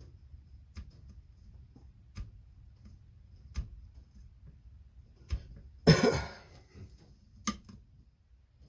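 A man coughing once, loudly, about six seconds in, between a few light clicks and taps from hand work on the chainsaw.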